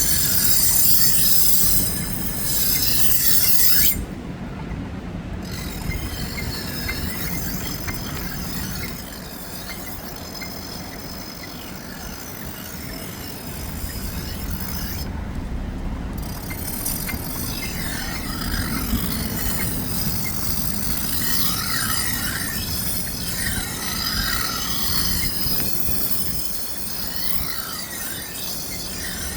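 A knife blade being ground on a powered sharpening wheel: a continuous loud grinding hiss with high metallic screeches that slide up and down in pitch.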